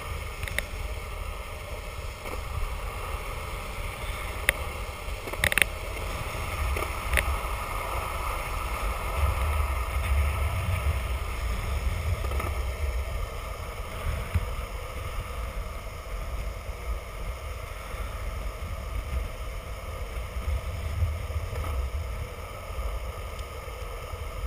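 Longboard wheels rolling on asphalt: a steady low rumble mixed with wind noise on the microphone, with a few sharp clicks in the first several seconds, the loudest about five and a half seconds in.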